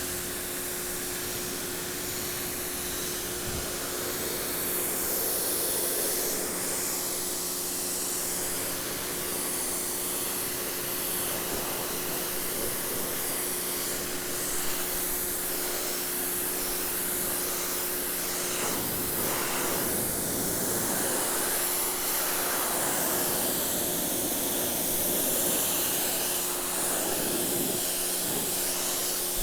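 Prymax 3000 PSI electric pressure washer running: its pump motor keeps up a steady hum while the water jet from the 15-degree nozzle hisses against deck steps.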